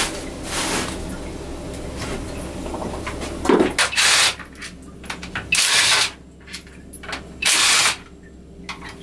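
Cordless drill with a socket bit running bolts on an inline-six marine engine: three short, loud bursts of the motor about a second and a half apart in the second half.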